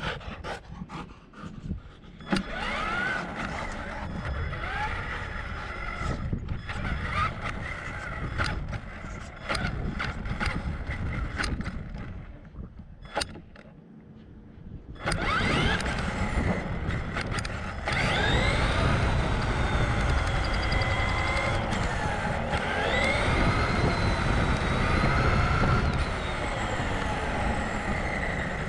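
Traxxas Summit RC truck's electric motor and drivetrain whining as it drives on asphalt, the pitch rising and falling with the throttle, over tyre rumble and scattered clicks. It goes quieter for a moment a little before the middle, then grows louder again as the truck speeds up.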